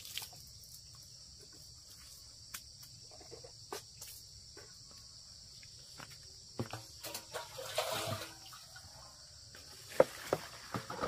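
Steady high-pitched insect chorus, with scattered light knocks of plastic basins and a dipper. About eight seconds in comes a splash of poured water, and near ten seconds a sharp plastic knock.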